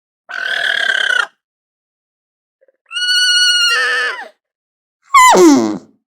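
Alpaca calling three times in short high-pitched cries separated by silence; the last and loudest call slides steeply down in pitch.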